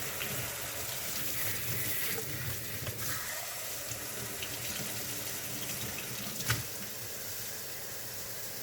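Tap water running into a sink while a dirty vacuum-cleaner part is rinsed and scrubbed clean under it. A single sharp knock about six and a half seconds in.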